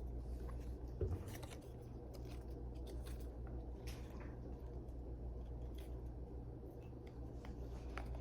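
Small plastic toy robot parts being handled and fitted together: faint scattered clicks and rustling, with one louder knock about a second in.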